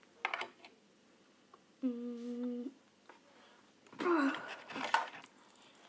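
A person hums one short, steady note lasting about a second, with brief clicks and rustles of handling before and after it.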